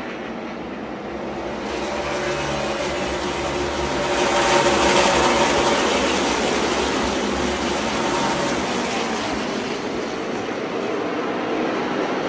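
A pack of NASCAR Xfinity Series stock cars running past on the track, the V8 engines of the field blending into one continuous drone. It swells to its loudest about four to five seconds in, eases off, and builds again near the end as more cars come by.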